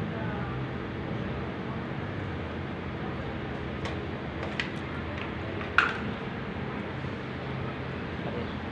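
Steady low machine hum made of several even tones, with a few sharp clicks or taps in the middle, the loudest about six seconds in.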